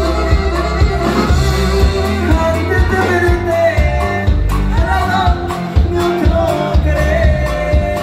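Live norteño band music: a melody line over steady bass and regular drum beats.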